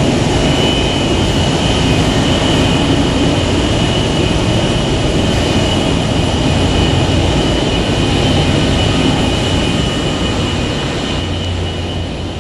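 Twin Pratt & Whitney JT8D turbofans of an MD-82 airliner running as it taxis: a steady rumble with a high whine held on one pitch, easing slightly near the end.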